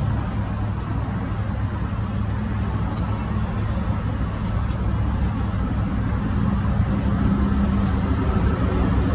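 A freight train of coal hopper cars rolling past with a steady low rumble, while diesel locomotives approach on the adjacent track, their engine drone growing louder toward the end.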